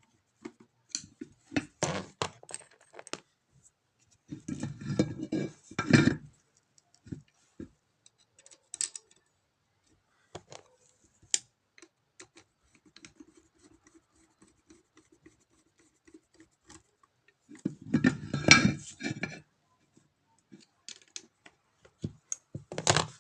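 Metal parts and tools being handled on a workbench: intermittent clinks, knocks and scraping in a few short clusters, with quieter gaps between.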